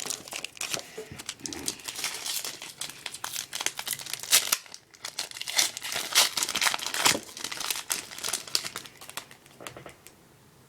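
Plastic wrapper of a trading card pack crinkling as it is torn open and handled, in a dense run of sharp crackles that fades out near the end.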